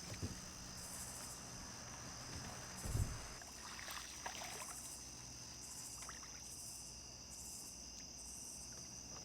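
Night insects calling: a steady high drone with a second chorus of pulsed calls repeating about once a second. A single low thump about three seconds in.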